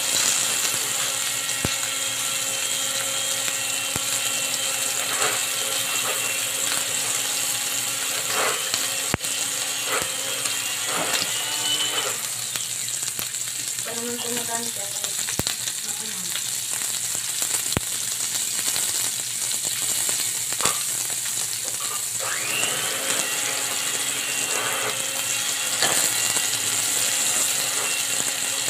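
Cubed wagyu beef sizzling steadily in its fat on an electric griddle plate, with scattered clicks and scrapes of tongs turning the pieces.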